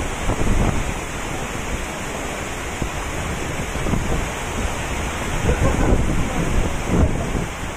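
Strong wind and heavy rain in a storm, the wind buffeting the microphone in gusts, with stronger gusts about half a second in and again from about five to seven seconds in.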